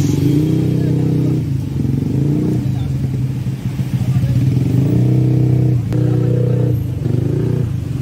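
Engines of motorcycles and cars running close by in slow, stop-and-go traffic, a steady low drone that shifts every second or two as vehicles move past.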